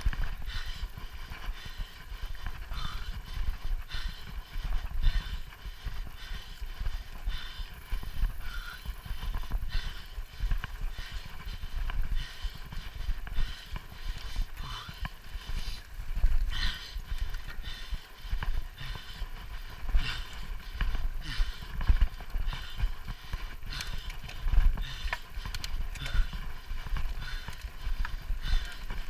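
Mountain bike ridden over a bumpy grass and dirt track: a continuous rattle of the bike over rough ground with many sharp knocks, over a low rumble.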